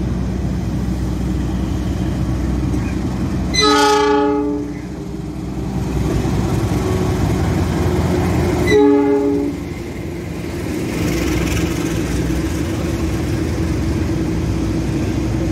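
Diesel locomotive horn sounding twice, each blast a multi-note chord of about a second, the second one louder, over the steady rumble of the locomotive's engine as it pulls the train into the platform.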